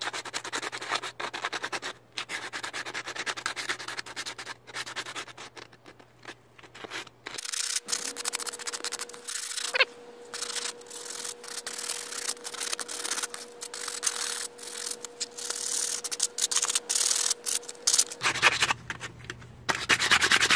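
New front brake pads having their edges sanded by hand with 120-grit sandpaper: rapid back-and-forth scratchy strokes with short pauses.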